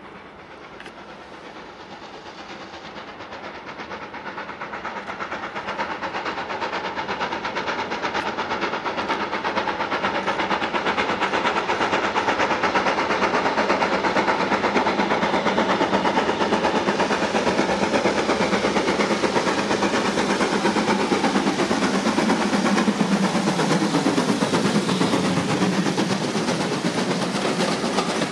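Steam locomotive hauling a passenger train, its rapid exhaust beats growing steadily louder as it approaches and passes. Near the end the carriages rumble by, clicking over the rail joints.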